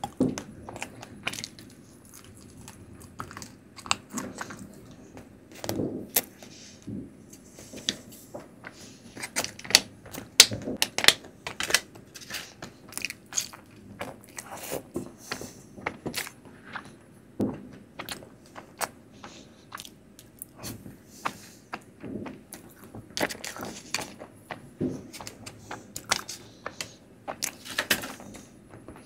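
Close-miked chewing and eating of soft Indian sweets, with many sharp, irregular mouth clicks and smacks.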